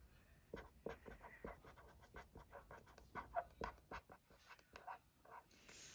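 Marker pen writing on small paper stickers: a faint, irregular run of short scratchy strokes.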